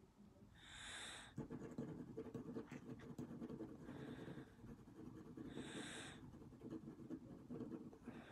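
Graphite pencil scratching on paper in quick, dense shading strokes, faint, starting about a second and a half in. A few short breaths are heard along with it.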